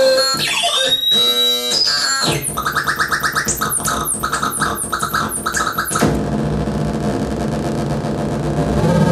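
Hand-built analog noise machine making electronic synth tones. First come pitched tones that step and glide. From about two seconds in, a fast run of repeated falling chirps follows, and at about six seconds it switches to a dense, steady buzzing drone.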